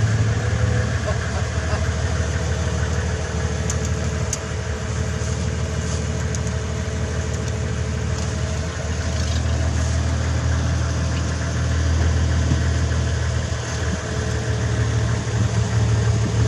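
Engine of an open safari game-drive vehicle idling steadily, heard from inside the vehicle while it stands still.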